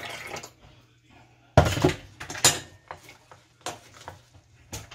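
Hot water trickling briefly through a stainless steel canning funnel into a glass jar. About one and a half seconds in comes a loud clunk, then irregular clinks and knocks of a plastic headspace tool against the metal funnel and the glass jar of lentils.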